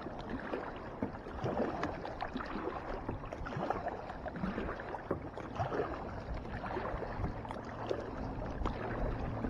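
Water lapping and splashing against a fishing kayak's hull and outrigger floats, with many small clicks and knocks from the boat and gear.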